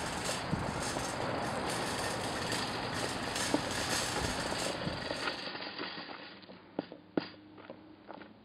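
Metal shopping cart rolling over a gravel road, its wheels and wire frame making a steady rattle that drops away about two-thirds through, followed by a few sharp clanks.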